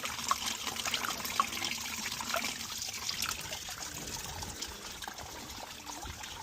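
Antifreeze coolant draining out of a BMC Mini tractor's cooling system: a steady trickle with many small splashes and drips.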